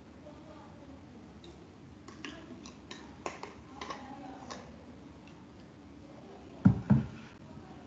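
A run of small, sharp clicks and ticks, then two low thumps in quick succession near the end, picked up through a video-call microphone.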